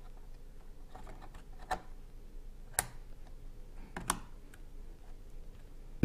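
A DDR3 RAM stick is pressed into a motherboard DIMM slot: a few sharp plastic clicks as the stick seats and the slot's retention latches snap shut. The loudest click comes about halfway through.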